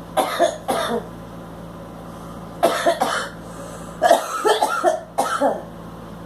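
A girl coughing in three fits after smoking a cigarette: two coughs at the start, more at about two and a half seconds, and a longer run of coughs from about four seconds in.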